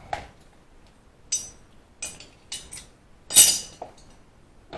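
Metal hand tools clinking and clattering: a handful of separate sharp knocks and clinks, the loudest a little over three seconds in.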